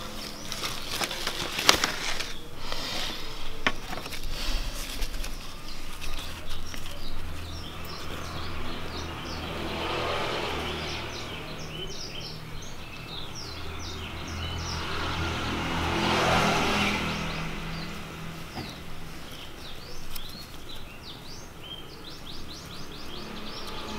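Outdoor ambience: small birds chirping in many quick, short notes, while a vehicle passes twice, swelling and fading about ten seconds in and again about sixteen seconds in. A low steady hum sits underneath, with a few light knocks in the first few seconds.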